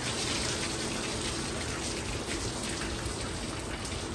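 Water from a hose spraying over a horse and splashing onto the wet concrete floor of a wash bay: a steady hiss and patter of water.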